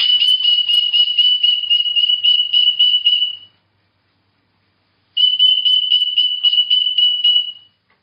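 A steady high electronic tone, warbling about four times a second like an alarm, sounding in two stretches of a few seconds each.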